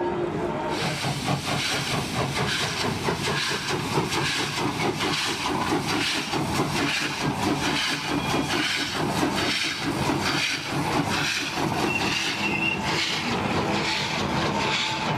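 Small steam tank locomotive working hard as it passes with its train of old coaches: fast, even exhaust chuffs over steam hiss and the rumble of wheels on rails. A short high-pitched tone sounds about twelve seconds in.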